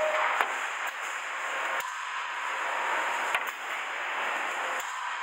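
Pneumatic cylinder piston travelling too fast and slamming into the end of its stroke: several sharp knocks of shock load over a steady hiss of air and machine noise.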